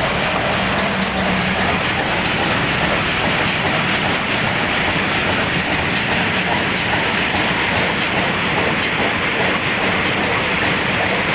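Two-tier peanut sorting machine running with a steady, dense mechanical rattle.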